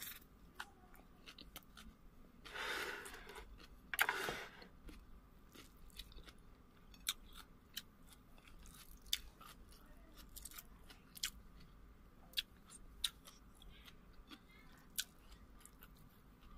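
Close-up mouth sounds of someone eating chicken biryani with fried chicken: chewing and lip smacking, heard as a run of small sharp clicks. Two louder, longer noises come about three and four seconds in.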